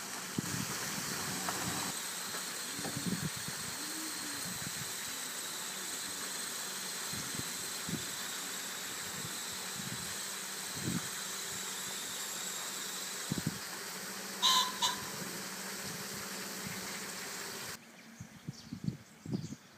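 Steady outdoor hiss with a short two-note chirp about fourteen and a half seconds in. The hiss cuts off suddenly near the end, leaving only faint low rumbles.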